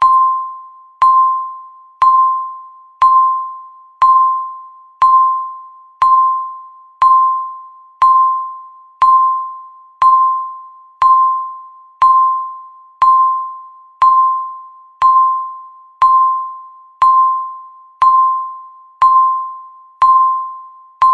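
Countdown timer beep sounding once every second: the same single mid-pitched electronic ping each time, struck sharply and fading away before the next one.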